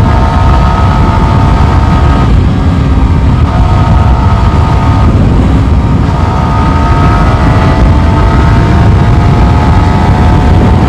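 Yamaha R15 V4's single-cylinder engine pulling hard as the motorcycle accelerates from about 80 to 100 km/h. Its whine rises slowly in pitch, with a couple of brief dips, over heavy wind rumble on the microphone.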